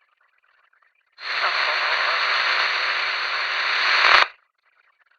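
Police two-way radio: a transmission of loud static hiss opens about a second in and cuts off abruptly about three seconds later, with no clear words.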